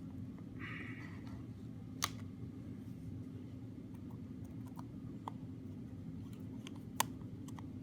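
Small clicks and ticks of a magnetic screwdriver working tiny screws into the iPod's metal shield, with two sharper clicks about two seconds in and near the end, over a steady low hum.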